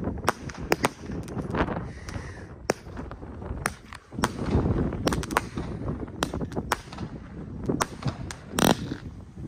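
Fireworks going off in a rapid, irregular string of sharp bangs as shells launch and burst. About four seconds in comes a longer rushing burst, and a stronger bang comes near the end.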